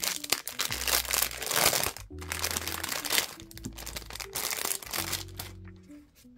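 Clear plastic bag crinkling as hands open it and slide out a stack of suncatcher decals, loudest in the first two seconds and fading toward the end. Soft background music with a bass line plays underneath.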